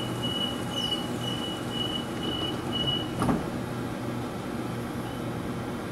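Door-closing warning beeps of a Sydney Trains Waratah (A set) electric train: a rapid run of high beeps, about three a second, that stops as the doors shut with a single knock about three seconds in, over the steady hum of the standing train.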